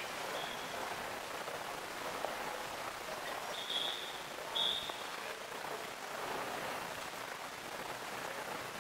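Subway platform ambience: a steady hiss, with two brief high-pitched squeals a little under a second apart near the middle.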